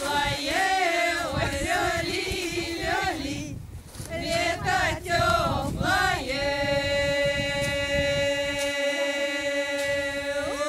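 Women's folk choir singing an unaccompanied Russian spring invocation song in a strong open-throated style, moving through the melody for about six seconds and then holding one long steady note. Right at the end the voices sweep upward into a call.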